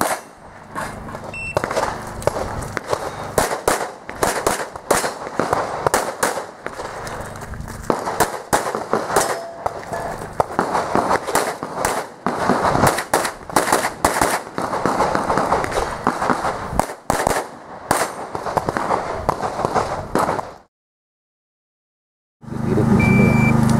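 Handgun shots fired in quick strings during IPSC stage runs, often several shots a second with short pauses between strings. About 20 seconds in the shots stop dead, and after about two seconds of silence a steady low hum starts near the end.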